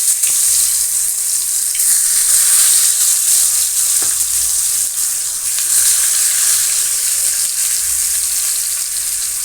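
Round eggplant slices sizzling as they fry in hot mustard oil, a steady, loud hiss with a few faint crackles.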